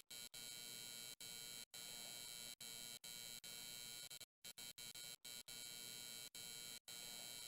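Near silence: a faint steady electronic hiss with a light hum, broken by brief dropouts.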